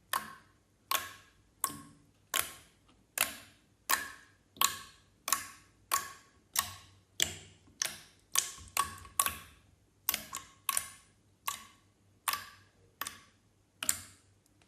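Clear slime being worked by hand, giving a string of sharp, wet pops about one every 0.7 seconds, each trailing off quickly.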